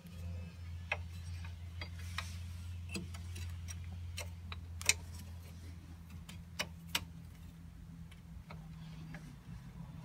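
Irregular light clicks and taps of rear drum brake hardware and the parking brake cable being handled at the backing plate, with the sharpest click about halfway through, over a steady low hum.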